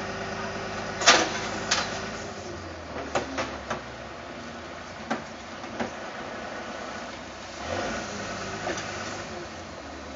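Fire engine's engine running steadily, with a scatter of sharp knocks over the first six seconds, the loudest about a second in.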